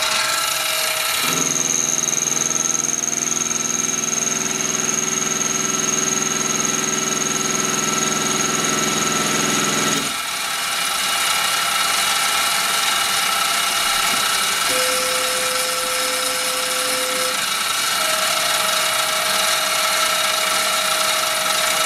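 Mini mill running an automated routine: the spindle motor hums steadily while the Arduino-driven stepper motors whine in turn as the axes and rotary table move. One long move runs from about a second in to about ten seconds. A shorter, higher-pitched move follows around fifteen seconds in, and another starts near eighteen seconds.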